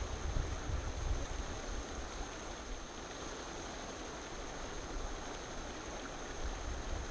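Steady outdoor hiss with wind rumbling on the microphone in gusts, strongest in the first second or so, and a faint steady high tone running throughout.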